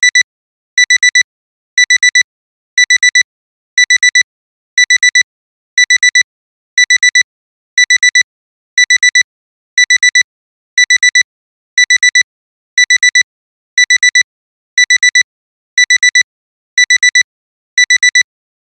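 Alarm clock alarm beeping: a high beep four times in quick succession, the group of four repeating about once a second. It signals that the timer has run out.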